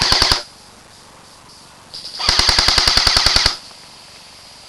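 Airsoft rifle firing on full auto: a short burst that stops just after the start, then a longer burst of about a second and a half, near the middle, with rapid, evenly spaced shots of roughly thirteen a second.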